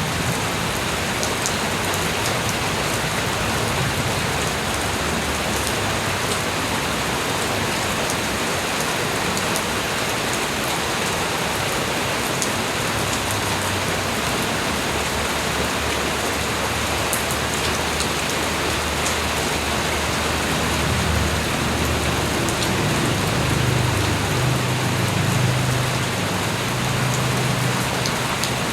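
Steady rain falling, an even hiss with scattered drops ticking. A low rumble comes up in the last several seconds.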